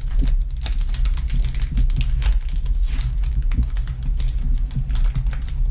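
Foil booster-pack wrappers crinkling and trading cards being handled: a dense run of small crackles and clicks over a low steady hum.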